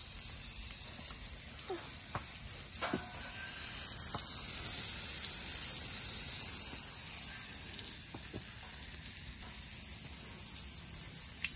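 Water spraying from a hose onto a young horse's wet coat: a steady hiss that grows louder for a few seconds around the middle.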